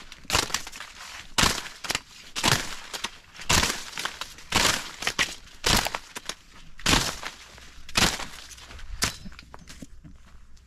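Footsteps along a corn maze path, each step crunching the dry cut corn leaves and stalks that litter the ground, about one a second, fading near the end.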